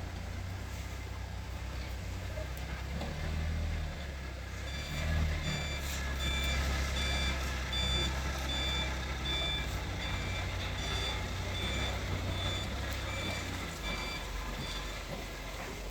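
Forklift engine running with a steady low drone. From about five seconds in, its reversing alarm beeps at an even pace, roughly one and a half beeps a second, stopping near the end.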